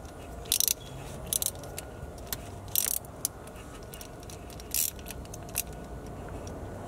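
Small hand ratchet clicking in short, irregular bursts as it turns a reverse-thread screw extractor (easy out) in a broken exhaust manifold stud, backing the stud out slowly.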